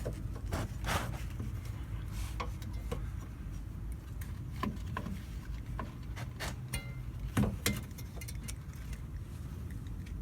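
Scattered clicks and knocks of hands and tools working at a stuck spin-on oil filter, the loudest pair a little past the middle, over a steady low hum.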